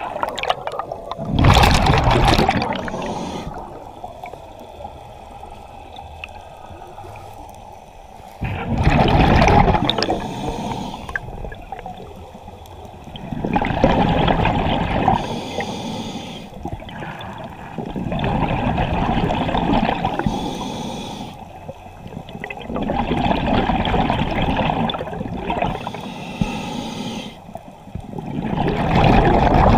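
Scuba diver's regulator breathing underwater: a rush of exhaled bubbles every five seconds or so, six in all, with quieter stretches between.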